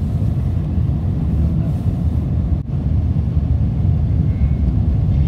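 Road noise inside a moving car's cabin: a steady low rumble of tyres and engine, dipping for an instant about two and a half seconds in.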